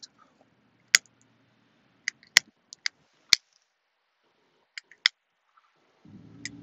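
Cigarette lighter clicked again and again, about ten sharp clicks over five seconds, some in quick pairs, as it is flicked to relight a cigarette.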